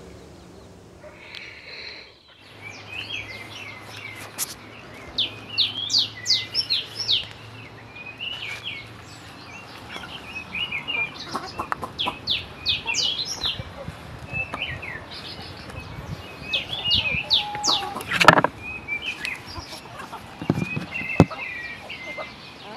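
A flock of young chickens feeding, with many short, high cheeps and clucks. A sharp knock sounds about three quarters of the way through.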